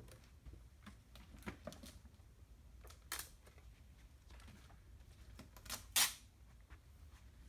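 Light handling noises: scattered soft clicks and short rustles, with a sharper click just after three seconds and a louder, brief rustle about six seconds in.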